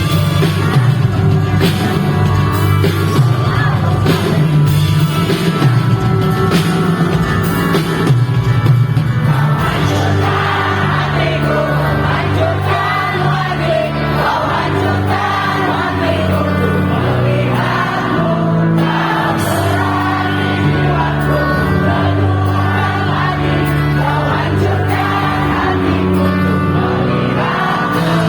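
Live pop-rock band playing a song with singing. The first ten seconds or so carry steady drum hits; after that the drums drop back and the sung melody rides over held bass notes and chords.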